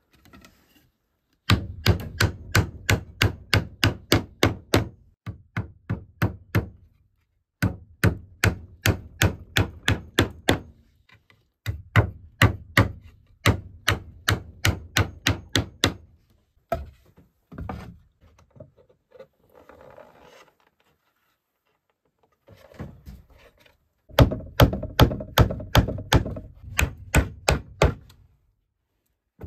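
Hammer driving nails into wooden boards: quick, even strikes about four a second, in four runs of several seconds separated by short pauses.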